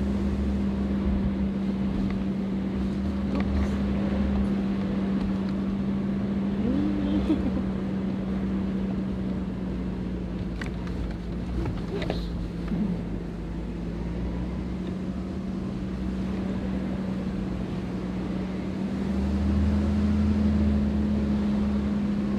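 Toyota Prado four-wheel drive running along a dirt track: a steady engine drone over tyre and road rumble. The rumble eases off in the middle and swells again near the end.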